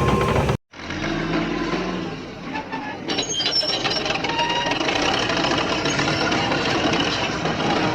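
Heavy machinery engine running, cut off abruptly about half a second in. Another machine's engine takes over, and from about three seconds in it is joined by high-pitched metal squealing and clanking.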